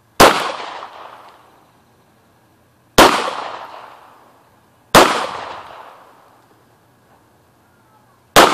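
Four shots from a Hi-Point 9mm pistol, about two to three seconds apart with the last near the end, each crack followed by an echo that dies away over a second or so.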